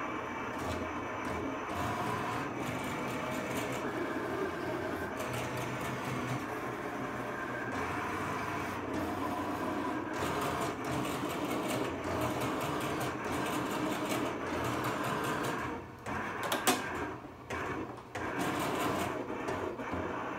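Cutting plotter running as its blade carriage traces a family-crest outline on a stencil sheet, its motors whirring with shifting pitch as the head changes direction. Near the end the whirring drops out briefly around a single sharp click.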